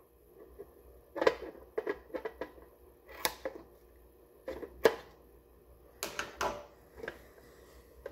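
Scissors snipping through steel mesh: a series of sharp, uneven snips, about ten over several seconds.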